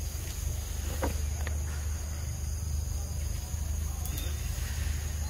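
Forest ambience: a steady high insect drone over a steady low rumble, with a few faint clicks about a second in and again near four seconds.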